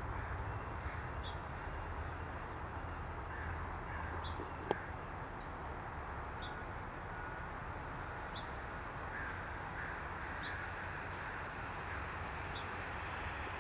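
Steady outdoor background noise with a low rumble, and faint caw-like bird calls now and then. One sharp click about four and a half seconds in is the loudest sound.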